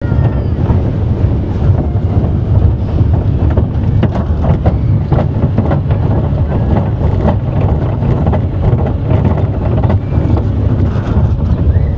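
Roller coaster car running along its track, heard from on board: a steady low rumble with frequent irregular rattling clicks, and wind on the microphone.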